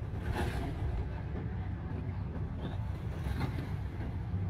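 Steady low rumble of a Daihatsu manual car's engine and tyres, heard from inside the cabin while driving slowly.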